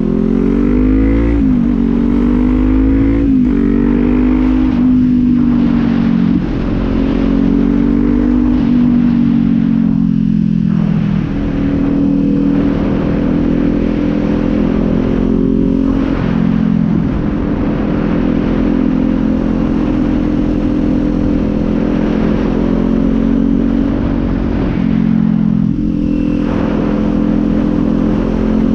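Kawasaki Z400's parallel-twin engine pulling through two quick upshifts, the pitch climbing and dropping with each shift, then holding a steady cruise with small rises and falls in speed.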